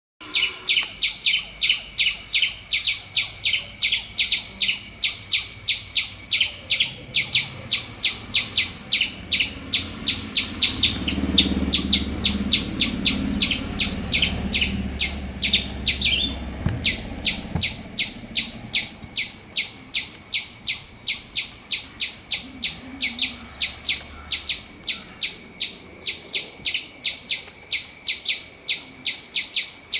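Squirrel chirping loudly, a long run of short, high-pitched chirps repeated evenly at about three a second.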